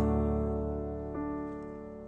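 Piano music: a sustained chord slowly fading, with a soft note added about a second in.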